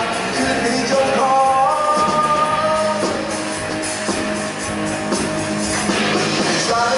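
Live rock band: a male singer sings over electric guitar and band accompaniment, holding long notes.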